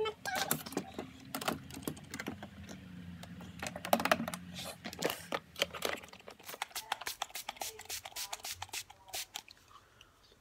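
Irregular clicks and clatter of small plastic toiletry bottles and containers being rummaged through in a plastic storage drawer.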